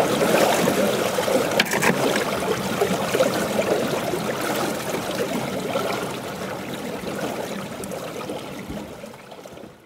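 River water running and splashing against a fishing boat, with a couple of light clicks about a second and a half in; the sound fades out over the last few seconds.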